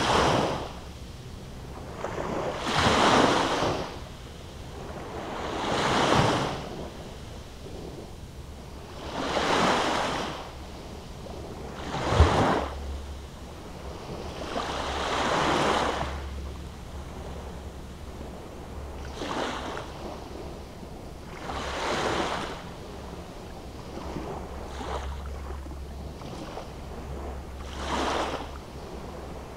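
Small waves breaking and washing up a sandy beach. The surf swells and falls back about every three seconds.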